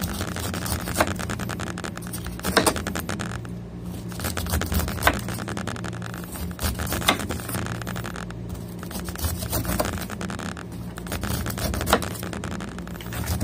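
Large kitchen knife sawing the rind off a whole pineapple: a dense, crackling scrape as the blade works down through the tough skin, with a few sharp knocks of the blade against the cutting board. A steady low hum runs underneath.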